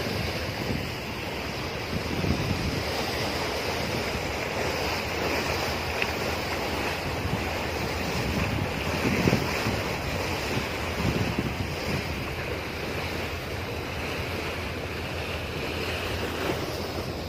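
Wind buffeting the microphone over the steady rush of sea water along the hull of a moving boat, with gusts rising and falling.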